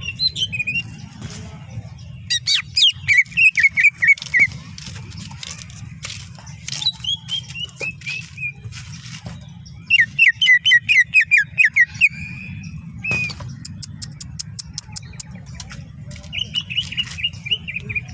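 Green leafbird (cucak ijo) singing in loud, rapid phrases of sharp, quickly bending whistled notes, separated by short pauses. A fast train of clicks comes about three-quarters of the way through, over a steady low hum.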